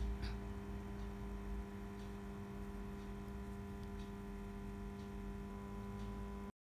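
Steady electrical hum with a few faint light ticks, about one a second. It cuts off suddenly near the end.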